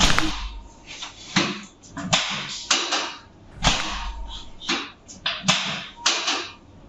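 Chiropractic drop table giving way under the chiropractor's thrusts: a run of about ten sharp knocks, unevenly spaced about half a second to a second apart, each with a short noisy tail.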